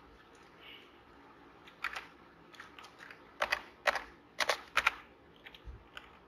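An irregular run of about a dozen sharp clicks from a computer keyboard and mouse, several in quick pairs, the loudest in the middle.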